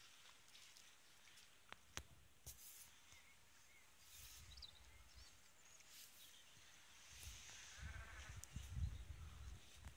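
Near-silent outdoor field ambience with a few faint soft clicks. In the last couple of seconds wind starts to rumble on the microphone and a faint bleat-like animal call is heard.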